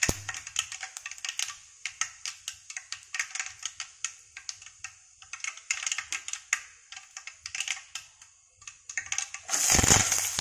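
Mustard seeds and urad dal popping and crackling in hot oil in a steel kadai: rapid, irregular sharp pops, the spluttering that shows the oil is hot and the tempering is ready for the onions. Near the end comes a sudden loud sizzle as chopped small onions, dried red chillies and curry leaves hit the oil.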